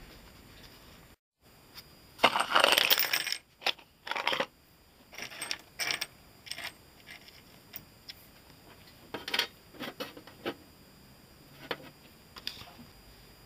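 Loose metal screws, bolts, nuts and washers clinking and rattling as a hand stirs through a pile of them on a hard surface. The loudest part is a dense rattle about two seconds in, followed by scattered separate clinks.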